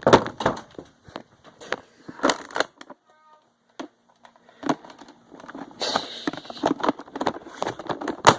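Close-range Nerf blaster fire: a run of sharp clacks and knocks as foam-dart blasters are primed and shot and darts strike, with a brief quieter lull in the middle.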